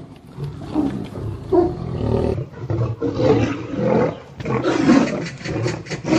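Tigers growling and roaring in a string of short, rough calls separated by brief gaps.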